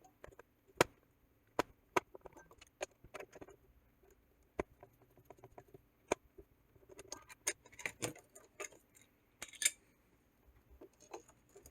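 Hoover Quest 700 robot vacuum being handled while one of its drive wheels is taken off: scattered light clicks, taps and small rattles at irregular intervals, with a few busier clusters about two, seven to eight, and nine and a half seconds in.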